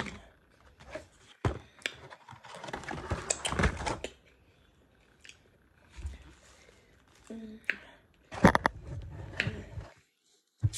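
Cardboard takeout boxes being handled and closed: scattered clicks, rustling and knocks of cardboard, loudest about eight and a half seconds in.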